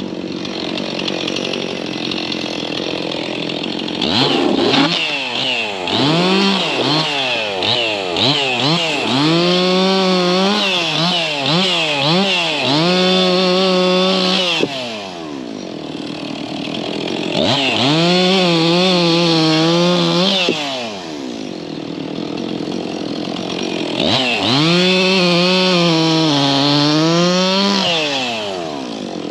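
Chainsaw idling, blipped up and down in quick revs about four seconds in, then held at high revs in three long spells with idle between. Its pitch sags and wavers during the spells, as under load while cutting into a tree.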